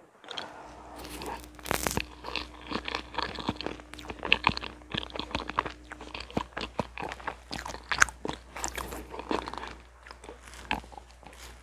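Close-miked eating: chewing a spoonful of whipped-cream strawberry parfait, with a dense run of small wet mouth clicks and crunches that thins out near the end.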